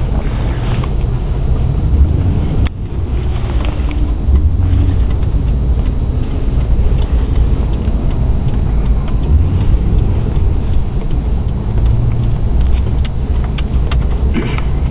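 Steady, loud road and engine rumble heard inside a moving car in city traffic, with scattered light clicks and knocks.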